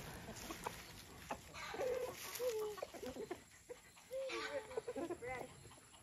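Chickens clucking: a run of short calls, some gliding up or down in pitch, starting about two seconds in.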